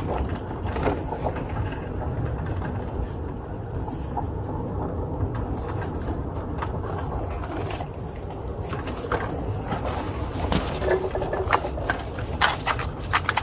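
Steady low rumble of a patrol truck running, heard from inside the cabin, with scattered clicks and rustles toward the end.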